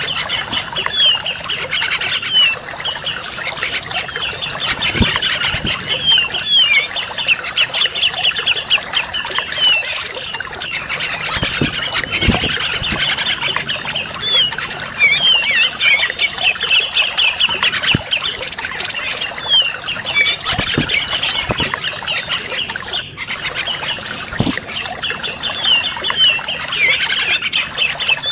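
Bird-lure recording of grey-cheeked bulbuls (cucak jenggot): a dense run of rapid, overlapping chirps and harsh chattering calls that never pauses, over a steady trickle of running water.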